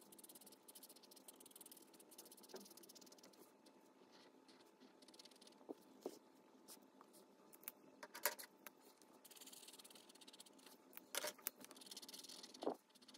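Dual-tip marker strokes scratching faintly on colouring-book paper, with a few sharp clicks, the loudest about eight and eleven seconds in.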